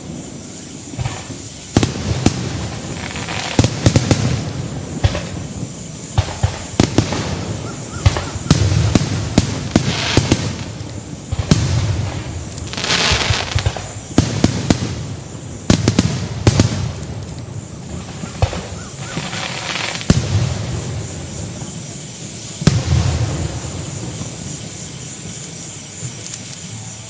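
Aerial fireworks display: shells bursting with sharp bangs at an irregular pace, with crackling in between, over a steady high-pitched whine.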